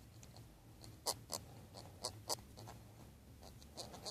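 A few scattered light clicks and scratches from hand work on a steering wheel mounting bolt, as it is handled with tools while being backed out and glued.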